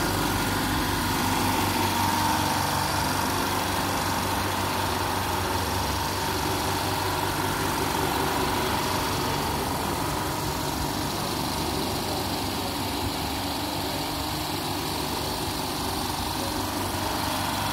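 Kölner 200-litre, 4 hp silent-type air compressor with several motor-pump heads, running steadily with a continuous even hum.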